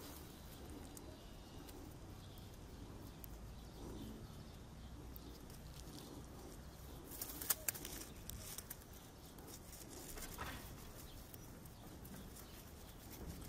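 Quiet outdoor background with a steady low rumble, broken by a short run of sharp clicks and rustles about seven and a half seconds in.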